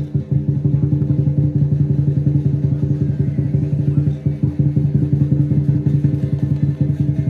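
Lion dance drum played in a fast, steady roll, with no cymbals or gong.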